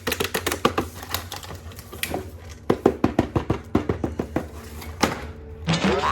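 Rapid, irregular clicking and clacking, several sharp clicks a second, over a low steady hum; a warbling, wavering tone starts just before the end.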